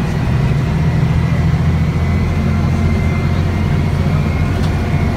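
Cabin sound of a Karsan Avancity S Plus articulated city bus under way: a steady low engine and road rumble with a thin, steady high whine above it.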